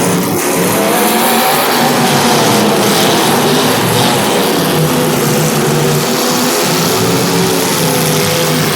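Several demolition derby cars' engines running and revving at once, loud and continuous, their pitches overlapping.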